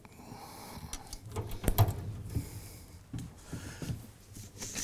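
Galvanized metal hanging poultry feeder being handled: a run of knocks, clanks and scrapes, the loudest a sharp clank nearly two seconds in.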